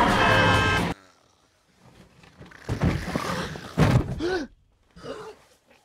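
Loud screaming that stops abruptly about a second in, then, after a short hush, a woman's gasping, heavy breaths as she wakes from a nightmare.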